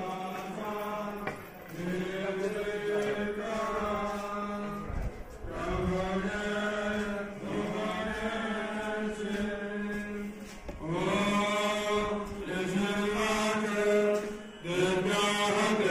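Hindu devotional mantra chanted by one voice in long held phrases, with short breaks between them.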